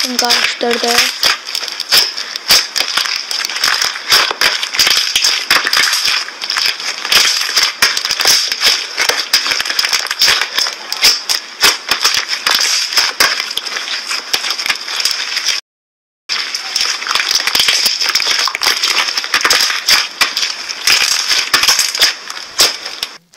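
Slime being squeezed and kneaded by hand, giving a dense, continuous run of wet crackling and popping clicks. There is a short break about two-thirds of the way through, where one clip cuts to the next.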